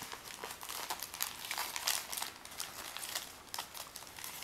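Red wrapping paper crinkling as a child's hands pull it off a small present, a run of irregular crackles and rustles.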